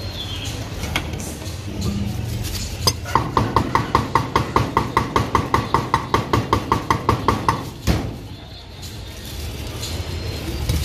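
Cleaver chopping raw beef on a round wooden chopping board: rapid, even strokes, about six a second for some four to five seconds, each with a short metallic ring. One single louder knock follows just after the chopping stops.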